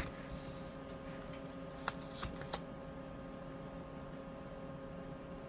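Tarot cards being handled: a sharp tap, a short sliding rustle and a few more light taps in the first half, then only a faint steady hum.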